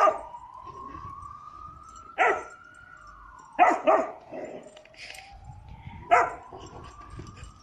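A galgo (Spanish greyhound) barking five times while at play, two of the barks close together in the middle. A siren wails slowly up and down behind it.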